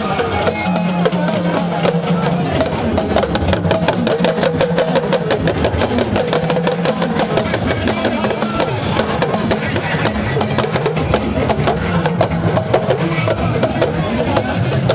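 Hausa underarm talking drums, several beaten together with curved sticks in a fast, dense rhythm, with crowd voices underneath.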